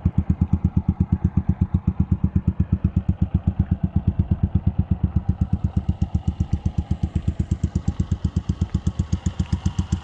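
Motorcycle engine idling with an even beat of about seven pulses a second.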